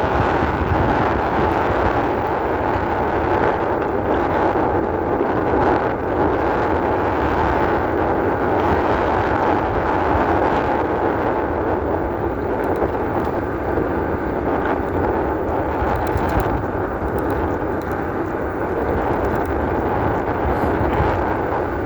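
E-bike riding along an offroad trail: a steady rushing noise of wind on the microphone mixed with the bike rolling over the trail.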